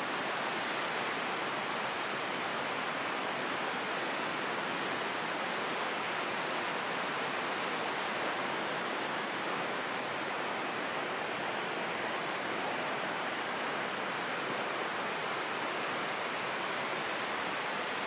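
Steady rush of water, an even hiss-like roar that holds at one level throughout.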